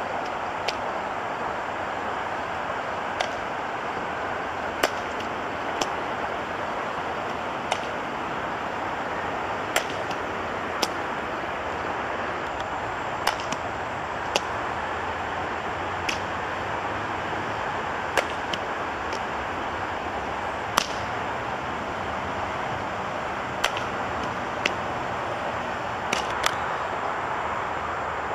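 Softball fielding practice: sharp knocks every one to three seconds, some louder than others, like balls striking leather gloves and bats, over a steady rush of outdoor noise.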